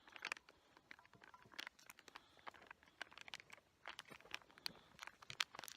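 Faint, irregular clicks and scrapes of biscuit batter being stirred by hand.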